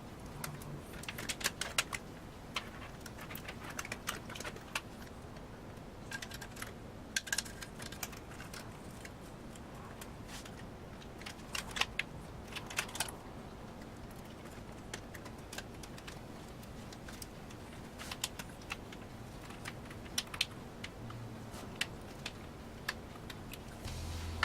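Scattered small clicks and taps of hands working inside a PC case, handling cables and plugging in connectors.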